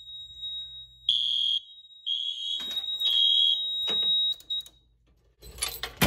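Wheelock MIZ fire alarm horn sounding in alarm on a smoke detector test: three harsh pulses about a second apart over a steady high tone, stopping about four and a half seconds in. Keys and handling rattle near the end.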